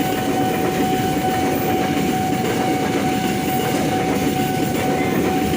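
Train passing close by, its wheels rumbling steadily on the rails, with a steady high tone sounding over it throughout.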